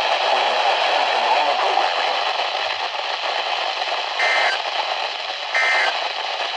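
Hissy weather-radio reception with a faint voice under the static. About four seconds in come two short squawking data bursts, about a second and a half apart. These are the SAME digital tones sent in threes to end an Emergency Alert System message.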